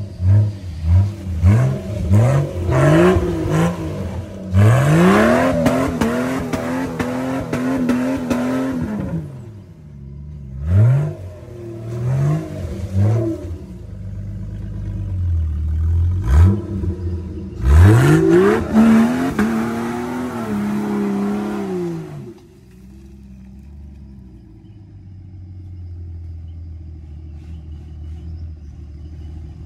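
Off-road truck engine revved in repeated bursts, its pitch climbing with each one: a string of short blips, then longer, held revs. After about three-quarters of the way it drops back to a low, steady idle.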